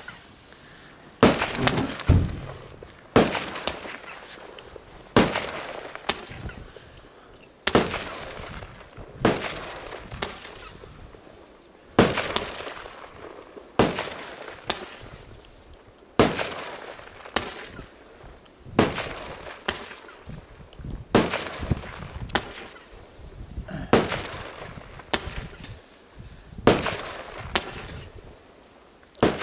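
A 25-shot compact firework cake firing shot after shot: a sharp bang about once a second, each dying away in a short fading tail, about twenty in all.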